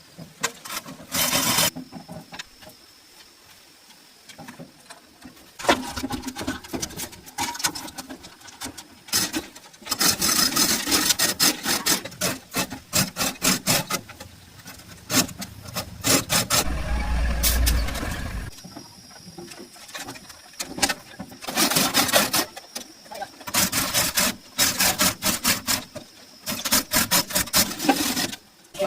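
Bursts of rapid scraping strokes with pauses between them, and a short low rumble about two-thirds of the way in.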